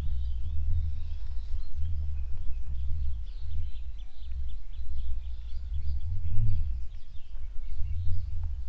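Outdoor background noise: an unsteady low rumble that swells and eases throughout, with faint high bird chirps scattered above it.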